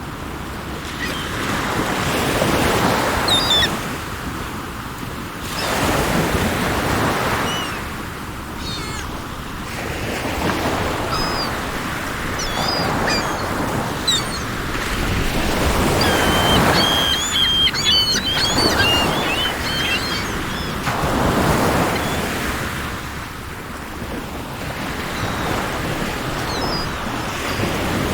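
Sea waves breaking and washing on the shore, swelling and ebbing every four to five seconds. Small birds chirp over the surf, most busily about two thirds of the way in.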